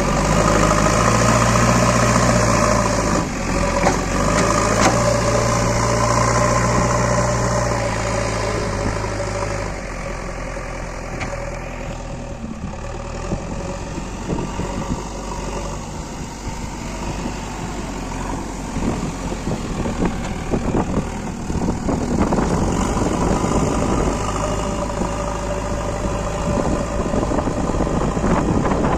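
Diesel engine of a JCB backhoe loader running steadily, with scattered knocks and rattles in the later part.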